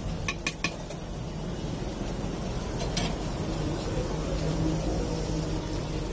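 Steady low background rumble of a street-food stall, with three quick metal clicks in the first second and another near three seconds: a steel spatula tapping and scraping on the flat dosa griddle as the filling is spread.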